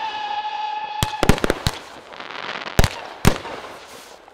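Consumer fireworks going off: a whistle effect, drifting slightly down in pitch, cuts off about a second in. A quick cluster of sharp bursting bangs follows, then two more bangs, with crackling between them.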